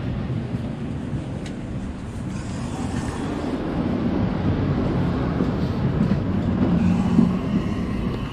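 A train running: a steady rumble that slowly grows louder, with a low hum standing out near the end.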